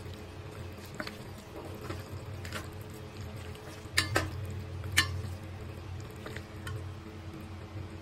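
Dressed udon noodles and vegetables being tossed in a stainless steel bowl: wet squelching, with sharp taps of the chopsticks and spatula against the bowl, the loudest about four and five seconds in. A steady low hum runs underneath.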